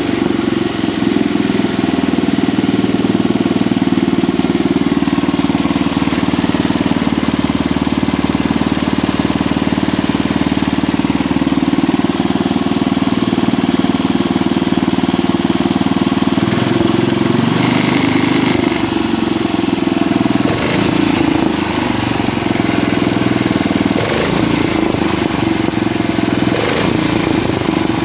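Cub Cadet 86 garden tractor engine running steadily, with its note shifting a few times in the second half. The starter-generator belt is disconnected, and the strange noise is absent, which the owner takes to point to worn bushings or bearings in the starter-generator.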